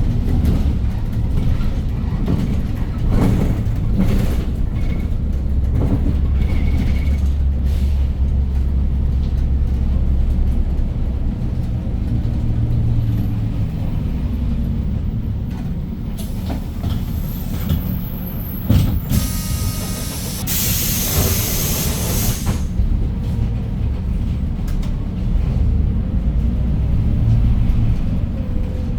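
Hyundai New Super Aero City city bus with a C6AF CNG engine, its engine running low and steady, heard from on board. About two-thirds of the way in come several sharp hisses of released compressed air from the bus's pneumatic system, the longest and loudest lasting about two seconds, as the bus reaches a stop.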